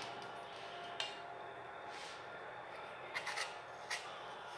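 Kitchen knife handled on a cutting board and set to a green apple's skin to peel it: a faint click about a second in, then a few short scrapes and clicks near the end.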